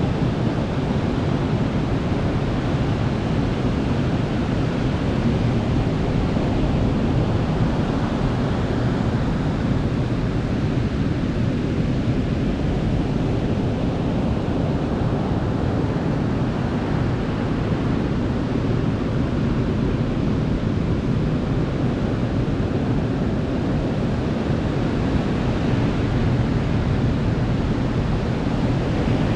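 Sea waves washing onto a beach at night: a continuous rush of surf that swells and eases slowly, with no single crash standing out.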